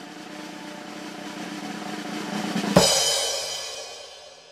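Drum roll on a snare drum that grows steadily louder, then ends about three seconds in on a single loud crash whose bright ringing fades away over the next second and a half.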